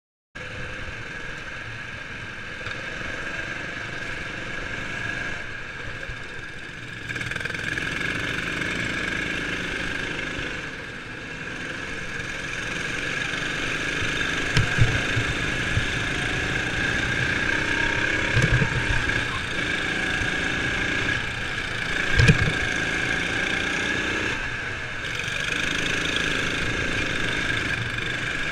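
Sodi RX7 kart engine running at racing speed, with a steady high whine over the engine note that grows louder as the kart picks up pace. A few sharp thumps break in, the loudest a little past two thirds of the way through.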